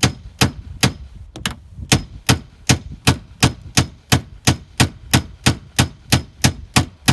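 Hammer striking a steel nut threaded partway onto a 2003 Chevrolet Tahoe's wiper-arm shaft: a steady series of sharp metal-on-metal taps, about two and a half a second, each with a short ring. The tapping is working to break loose a wiper arm seized on its shaft while a screwdriver handle pries up underneath.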